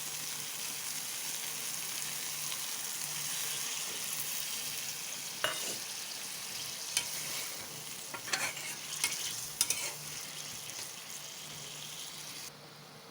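Food sizzling in hot oil in a pan, with a spatula scraping and knocking against the pan several times midway through. The sizzling drops off suddenly near the end.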